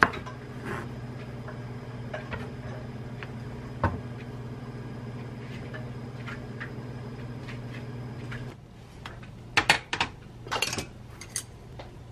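Kitchen sounds: a knife tapping on a wooden cutting board over a steady low hum. About eight and a half seconds in, the hum stops and chopsticks click several times against a plate and plastic container.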